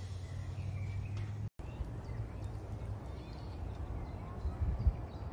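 Outdoor ambience: a steady low rumble with faint bird chirps now and then. The sound drops out briefly about a second and a half in.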